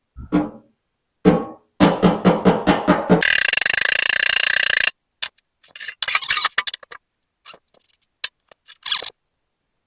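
Hammer blows on an aluminum car door skin during panel beating to raise a low spot: a few single knocks, then a quick run of about eight strikes. The strikes give way to a steady rasping noise lasting under two seconds, and then scattered lighter taps.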